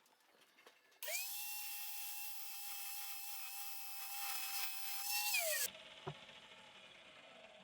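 Small high-speed grinder spinning up about a second in, whining steadily for a few seconds while it grinds, then winding down with falling pitch. It is cutting off the staked top thread of a fork cartridge damper rod nut so the nut can come off.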